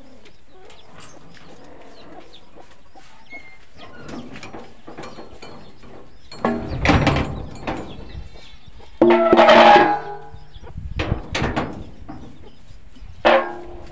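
Sheet-metal door being shut and latched: a clatter of the door and its bolt partway through. A short, loud call comes about nine seconds in, with a briefer one near the end.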